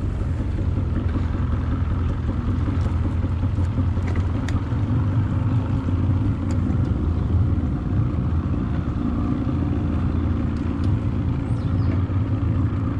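Outboard motor of a small skiff running steadily while the boat moves along: an even, low-pitched sound with no change in speed.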